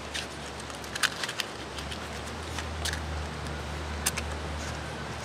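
Matches struck against the side of a matchbox several times: short, sharp scratchy strikes, the loudest about a second in. A low rumble of wind on the microphone runs underneath.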